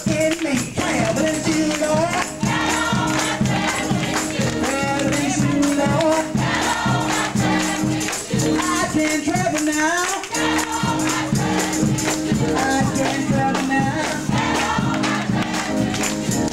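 Upbeat gospel music with group singing over a steady beat, with hand-clapping.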